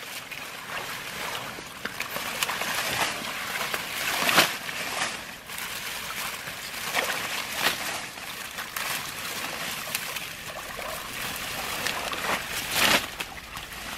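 Water hyacinth being pulled up by hand from a shallow pond: water splashing and dripping off the roots, with wet leaves rustling. A few louder splashes stand out, about four seconds in, past seven seconds, and near the end.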